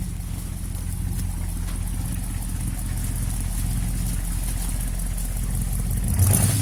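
Ford 390 V8 in a 1965 Ford F100 pickup idling steadily through an exhaust with its leak now fixed; about six seconds in the engine is revved and gets louder.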